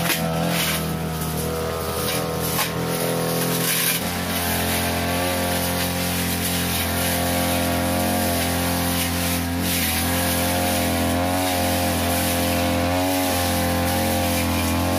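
42cc brush cutter engine running at cutting speed, its metal blade slashing through thick grass and weeds. The engine note shifts about four seconds in, then wavers slightly up and down.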